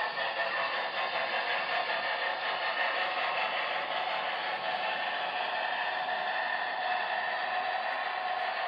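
Steady hiss and whir of HO-scale model trains running slowly on the layout, with faint clatter.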